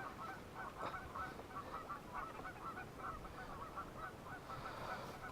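Faint, distant geese honking: many short calls repeating several times a second.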